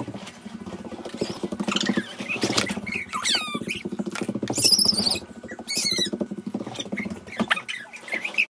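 A young child's quick, high-pitched squeals and shrieks in play, over a fast, continuous rattling patter.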